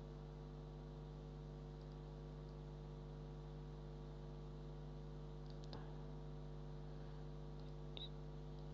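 Steady electrical mains hum, with a few faint computer mouse clicks, one a little before six seconds in and one about eight seconds in.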